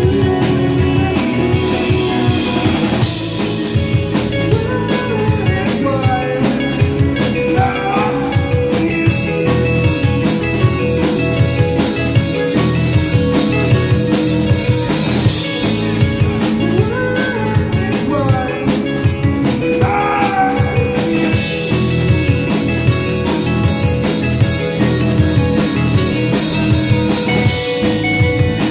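Live rock band playing a song, with a drum kit hit steadily under sustained guitar notes.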